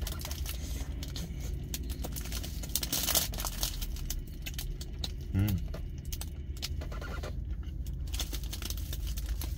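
Chewing a frozen pizza bread, with its plastic wrapper and plastic gloves crinkling in many small clicks, over a steady low hum; a short hummed "mm" about five and a half seconds in.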